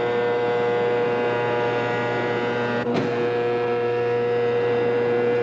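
Westinghouse Electro robot's motors whirring as it walks, a steady hum of several held tones, with a brief click about three seconds in.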